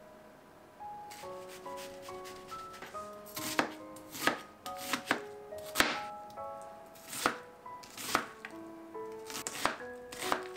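Chef's knife chopping an onion on a plastic cutting board: about a dozen sharp, irregularly spaced knocks of the blade on the board, starting about three seconds in. Soft background music with plucked notes plays throughout.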